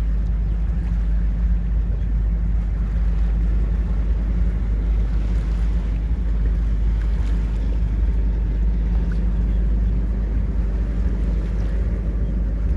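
Steady wind buffeting the microphone, a constant deep rumbling rush with no breaks.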